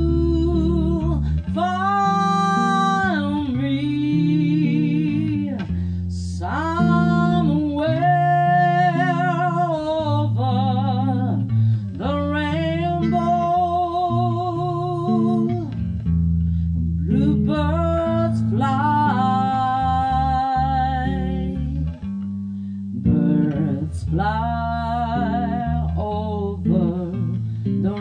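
A song: a voice sings long held notes with vibrato in phrases of a few seconds, over guitar and bass accompaniment.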